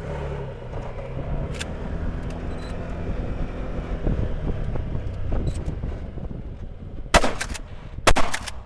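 12-gauge shotgun shots: a loud shot about seven seconds in and a quick pair about a second later, with a fainter shot or two earlier. Under them a side-by-side's engine runs steadily.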